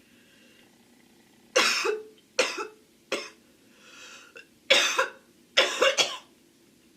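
A young woman coughing: about seven harsh coughs in two bursts, starting a second and a half in, with a breath drawn in between the bursts.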